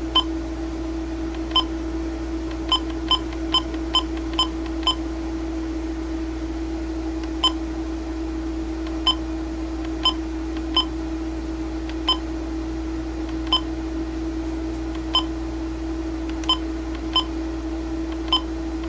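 Midland WR-400 weather radio's button beeps as its buttons are pressed to set the clock minutes. There are about eighteen short, high beeps at irregular intervals, quick together in the first few seconds and sparser after, over a steady hum.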